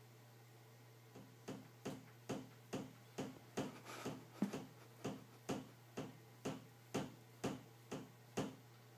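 A cat knocking on a closed door, a steady run of about seventeen knocks at roughly two a second, starting about a second in: the cat wants to be let out.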